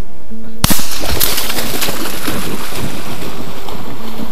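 A single close shotgun blast about half a second in, loud enough to overload the recording, followed by steady wind noise on the microphone.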